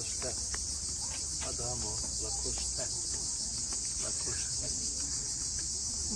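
A steady, high-pitched insect chorus that runs on without a break, with faint voices of people milling around beneath it.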